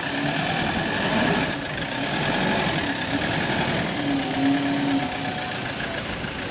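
A motor running steadily. A faint tone in it wavers slightly in pitch.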